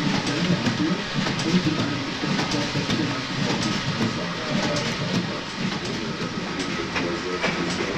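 The steam engine of the 1928 steam launch Otto Lauffer running: a steady rhythmic clatter of its moving parts, with scattered metallic clicks.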